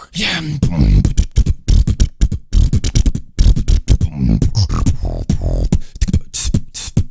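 Human beatboxing into a microphone: a fast freestyle beat of sharp kick, snare and click sounds, with short hummed bass notes woven between them.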